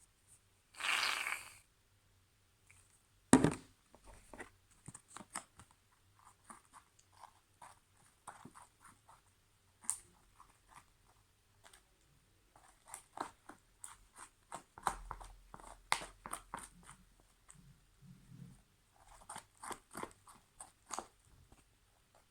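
Thickening slime being stirred and worked, giving irregular sticky squelches and small clicks. A short hiss about a second in and a single loud thump a couple of seconds later.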